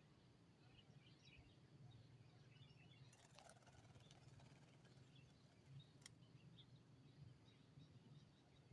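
Near silence: faint, scattered bird chirps over a low steady hum, with a couple of faint clicks.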